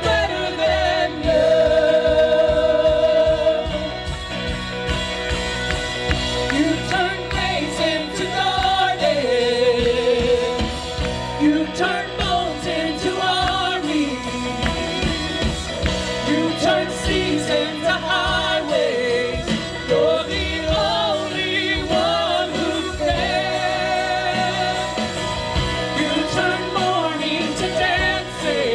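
Church worship team singing a gospel worship song over instrumental accompaniment.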